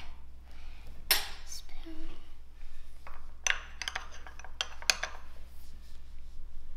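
Metal spoon clinking and scraping against a small ceramic bowl as soft ice cream is scooped out: a run of irregular sharp clinks, the loudest about a second in.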